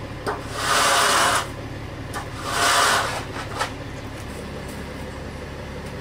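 Hand tools scraping through wet concrete, two loud scrapes about a second long each in the first half, with a few short knocks, over the steady low hum of a concrete mixer truck's engine idling.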